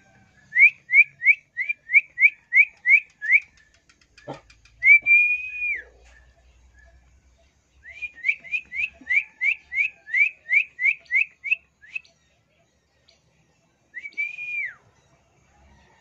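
A man whistling to call his birds: two runs of quick rising whistled notes, about three a second, each followed by one long whistle that drops off at the end. A single knock sounds about four seconds in.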